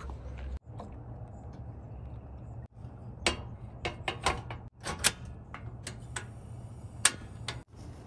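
A string of short, sharp clicks and clinks from handling a steel kettle on a butane camp stove and metal tumblers while making instant coffee, over a steady low hum. The sound breaks off abruptly a few times.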